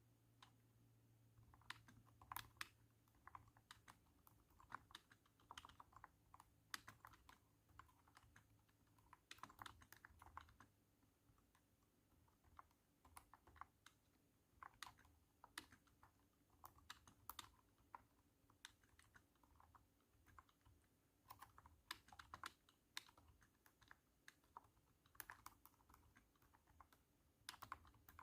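Typing on a cat-shaped computer keyboard: thunky keystrokes come in irregular runs, with a few short pauses.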